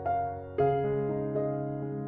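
Slow background music on an electric piano: a few single notes struck, each fading, over a held low note.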